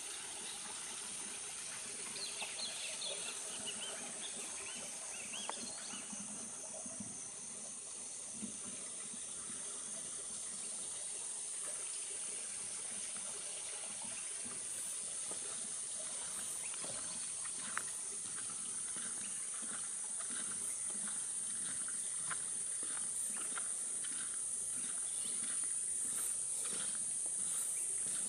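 Jungle insects buzzing in a steady high-pitched chorus that grows slowly louder, with a few short chirps about two to four seconds in.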